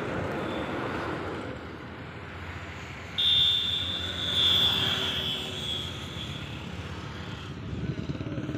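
A motor vehicle's engine running on the road, a low rumble. About three seconds in a high, steady tone starts suddenly; it is the loudest sound and fades out over the next few seconds.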